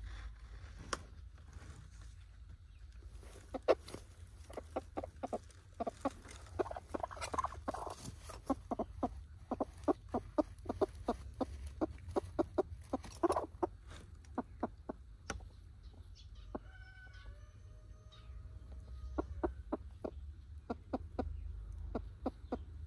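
A broody hen clucking on her nest: runs of short, low clucks at about three a second, with a pause and a brief higher call in the middle.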